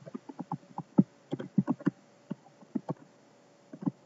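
Rapid, irregular run of short taps and clicks close to the microphone, about five a second, some of them sharp and loud.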